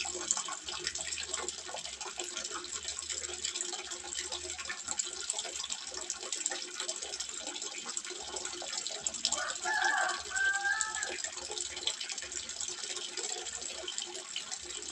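Water trickling and splashing steadily into a small fish pond, an even, fine patter. About ten seconds in, a short pitched call sounds briefly over the water.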